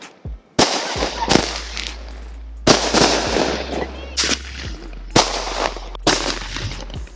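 Consumer firework cake firing aerial shells, each going off with a sharp bang followed by crackle. About a dozen irregularly spaced reports, several coming in quick pairs.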